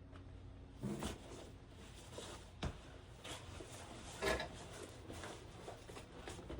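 Handling noises from a hunting saddle and its new rope belt: rustling fabric and rope with a few scattered clicks and knocks, the sharpest click about two and a half seconds in and the loudest knock a little past four seconds.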